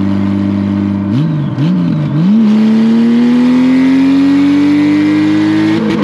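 Honda Gold Wing motorcycle engine running at road speed. About a second in, its revs rise and drop three times in quick succession, then climb steadily for several seconds before dropping near the end.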